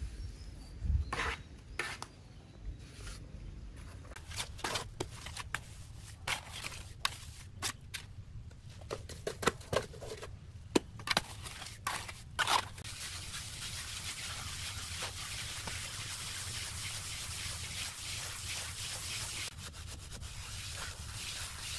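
Hand float rubbing and scraping over wet cement render on a brick wall. Short scraping strokes and taps come first, then a steady, continuous rubbing from about halfway through.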